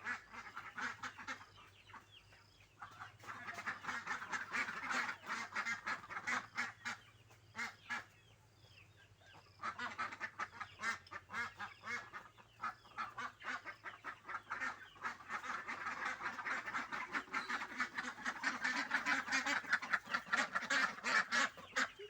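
A flock of poultry calling in a dense, rapid chatter that comes in waves, easing off briefly twice and building toward the end.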